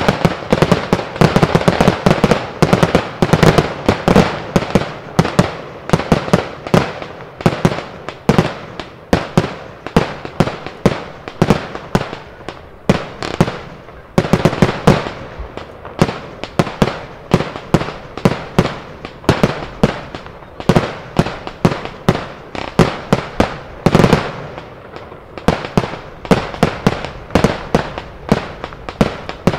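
Professional fireworks display firing a continuous rapid barrage: launches and bursting reports come several a second, one on top of the next.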